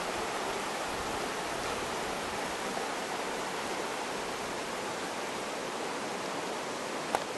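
River current rushing over stones in a shallow, broken streamy run: a steady hiss of flowing water. A single short click near the end.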